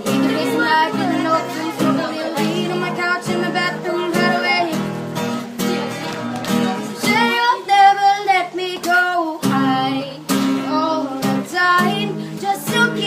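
Acoustic guitar strummed in a steady rhythm while a singer sings along, holding a wavering note about seven to nine seconds in.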